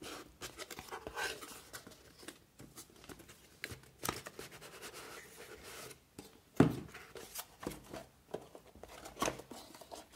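Cardboard packaging of a CPU cooler being handled and opened: a retail box tipped and slid apart, and a plain inner carton lifted out and its flaps opened. The sound is irregular rustling, scraping and light clicks, with one loud knock about six and a half seconds in.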